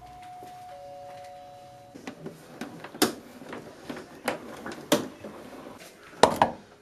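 Two steady electronic tones held together for about two seconds and stopping at once. Then a run of irregular knocks and clunks, the loudest about three seconds in and again near the end.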